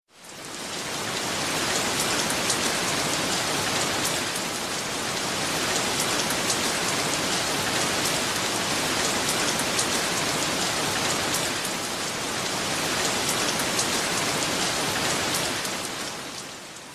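Heavy, steady downpour: dense rain hiss with the ticks of drops hitting a surface. It fades in over the first second and fades down near the end.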